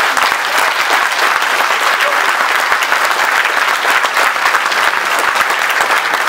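A large seated audience applauding: dense, steady clapping that holds at one level throughout.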